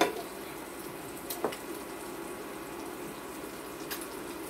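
Eggs frying in oil in a pan, a steady sizzle, with a couple of faint light clicks about a second and a half in and near the end.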